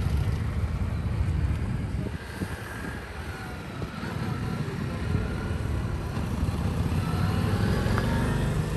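Small cruiser motorcycle engines running at low speed as riders circle through slow turns, fading briefly a couple of seconds in and then growing louder as one bike rides close by near the end.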